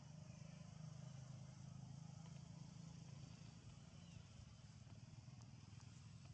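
Faint, steady low engine hum of a passing motorbike tuk-tuk, a motorcycle pulling a passenger carriage, easing off after about three seconds.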